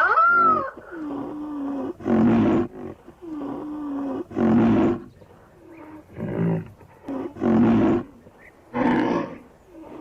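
Rhinoceros calling: a high squeal that falls away, then a series of loud, harsh bellows about a second apart. Between the first bellows runs a steady low moaning tone.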